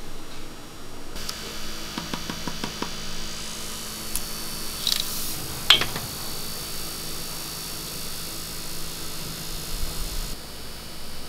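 Cotton candy machine's spinning head running with a steady hum and hiss as floss is spun onto a stick. The hum starts about a second in and stops shortly before the end, with several light clicks along the way and one sharper click near the middle.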